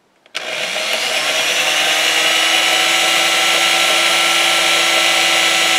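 Electric drill spinning up about a third of a second in, then running steadily as its bit bores into the centre of a broken screw in a pinball playfield post, drilling it out so it can be unscrewed.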